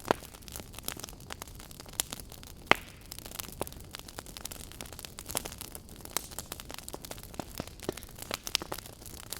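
Fire crackling: a steady run of irregular sharp pops and snaps over a low hiss, with one louder pop right at the start and another a little under three seconds in.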